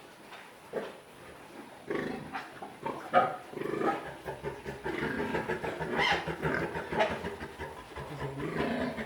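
Pigs grunting and calling irregularly, getting busier about two seconds in.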